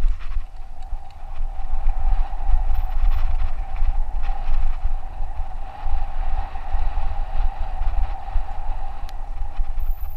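Wind rumbling on the microphone of a camera riding on a mountain bike at speed on a dirt singletrack, with tyre noise and scattered clicks and rattles from the bike over bumps. A steady mid-pitched buzz runs underneath.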